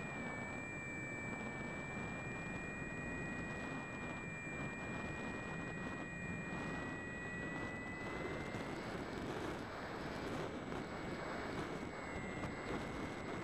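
Onboard sound of a Bixler electric model plane in flight: the brushless pusher motor and propeller give a steady high whine over a rush of wind noise, the whine shifting slightly in pitch about two-thirds of the way through.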